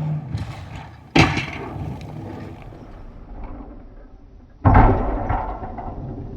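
Plow blade of a Ram 2500 plow truck slamming into snowbanks twice, about a second in and again past the middle, each a sudden heavy impact that trails off.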